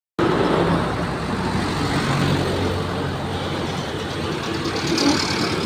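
Intercity bus engine running steadily, with road traffic noise.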